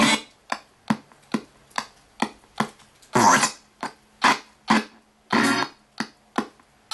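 RTC ghost box sweeping through radio stations: a steady train of short chopped bursts of broadcast audio, about two to three a second, with a couple of longer snatches of music among them.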